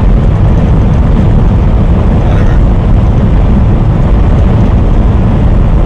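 Semi-truck engine and road noise while driving: a steady, loud, low rumble.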